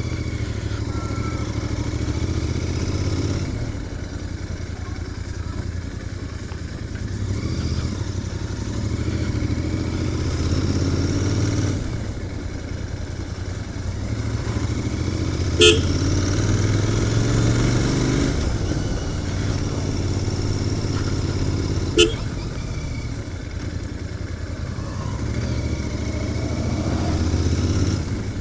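Royal Enfield Continental GT 650's 648 cc parallel-twin running through its stock exhaust while riding, the rumble rising and easing with the throttle several times. Two brief sharp sounds cut through it, about halfway through and again a few seconds later.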